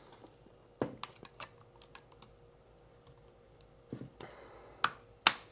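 Plastic separators on a Victron Lynx Distributor clicking and snapping as they are pressed into place, with light handling knocks: scattered small clicks, then two sharp snaps near the end, the last the loudest.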